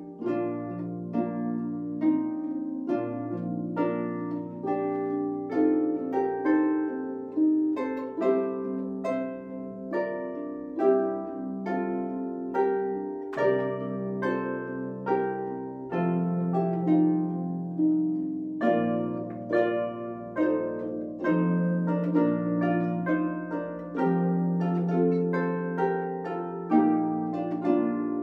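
Three concert harps playing a hymn together: plucked melody and chords ringing over held bass notes, with a steady pulse of fresh attacks about once a second.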